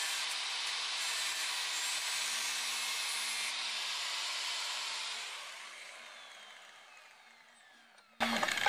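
Electric angle grinder notching a metal rod held in a vise, a steady grinding noise. It is lifted off and switched off about five seconds in, its whine falling as the disc spins down, before a sudden louder sound at the very end.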